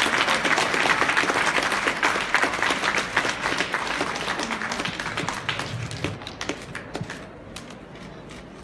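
Audience applauding, the clapping dying away over the last few seconds into a few scattered claps.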